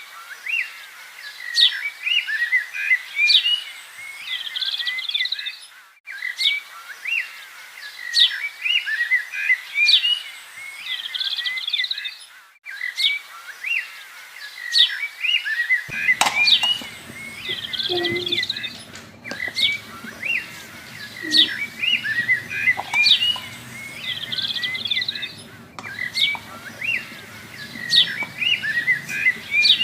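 Birdsong of many quick chirps and whistles, a recorded loop that repeats about every six and a half seconds with a brief cut between passes. About halfway through, a faint low hum and a few soft knocks join beneath it.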